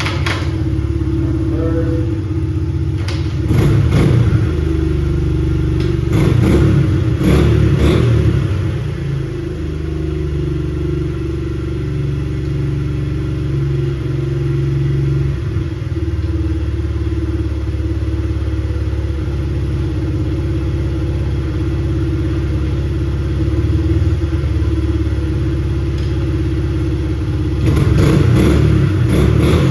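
Honda CRF70 dirt bike's small single-cylinder four-stroke engine running, revving up several times (about 4 s in, around 6 to 8 s, and near the end) between steadier running. It runs and pulls through the gears after its broken primary gear and shift drum stopper were replaced.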